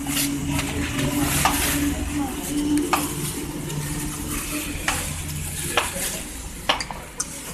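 Large fresh leaves rustling and crackling as hands fold them over a heap of spiced chicken, with several sharp crackles scattered through. A low steady hum runs underneath for about the first five seconds.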